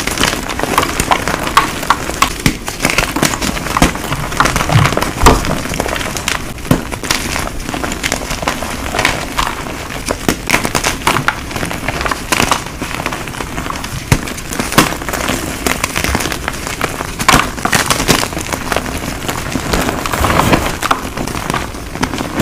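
Gym chalk being crushed and crumbled: dense, irregular crunching crackles, many each second.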